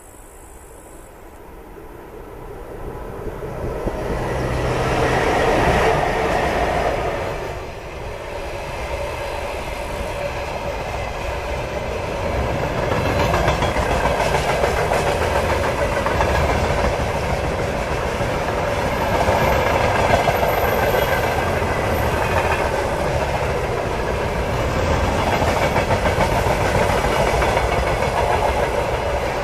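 VL10U electric locomotive hauling a container freight train past at speed: the sound grows to its loudest about six seconds in as the locomotive goes by. The rest is the steady rolling rumble and clatter of the loaded container flat wagons' wheels on the rails.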